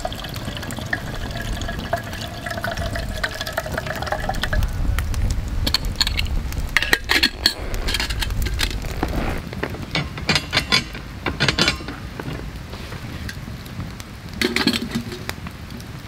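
Water running from a plastic water jug's spigot into a stainless steel kettle, with a steady filling tone that stops about four seconds in. Then a series of light metal clinks and knocks, in two clusters and once more near the end, as the lidded kettle is handled and the spigot is closed.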